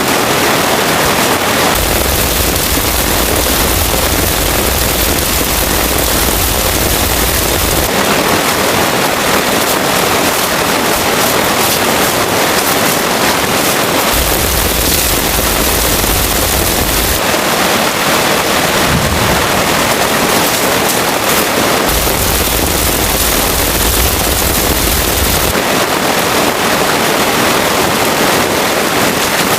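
Heavy rain, a loud steady hiss and patter whose tone shifts abruptly every few seconds, sometimes with a low rumble underneath.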